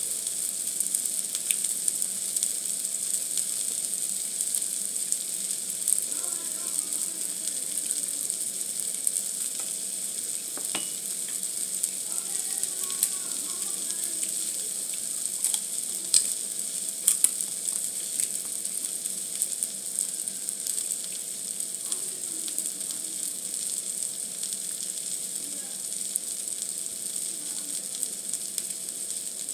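Food sizzling steadily in hot oil, with frequent small crackles and pops.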